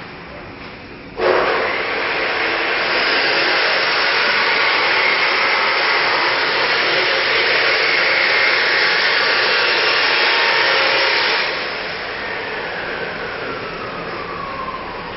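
A motor-driven machine starts suddenly about a second in with a loud, steady rushing hiss. Near the end it drops in level and a falling whine follows as it winds down.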